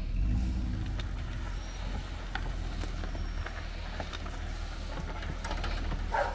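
Pickup truck engine running at low speed while it tows a dead tractor on a chain, a little louder in the first second, with scattered small crackles over the steady low hum.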